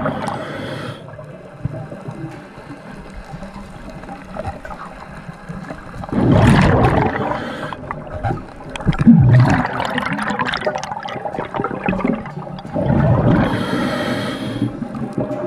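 Water heard underwater: a steady bed of sloshing and gurgling, with loud rushes of bubbling water about every three to four seconds.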